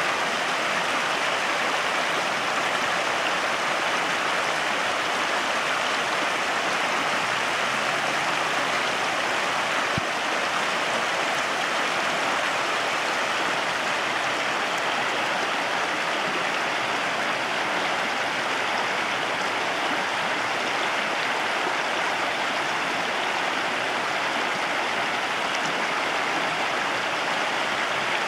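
Small stream running over rocks, a steady, even rush of water.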